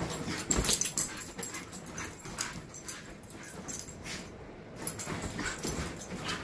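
Siberian husky puppy tearing around in zoomies: an irregular run of knocks, thuds and scuffs from paws and claws.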